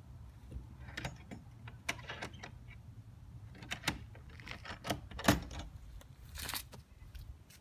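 Footsteps crunching on dry leaves and grit: an irregular series of light crunches and clicks, the loudest a little past five seconds in.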